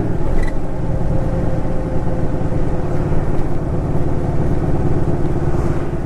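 Suzuki Intruder Classic 400 V-twin motorcycle engine running steadily.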